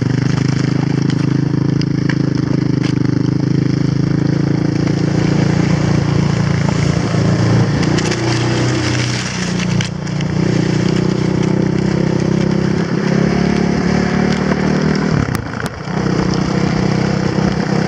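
Quad bike engine running steadily as it tows sledges, with its note dipping briefly a couple of times, over the hiss of sledge runners sliding on packed snow.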